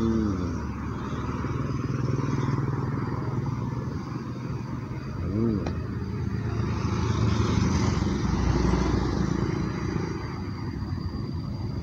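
Road traffic of small cars and motorcycles passing, engine noise swelling and fading. A short falling tone sounds twice, at the start and about five seconds in.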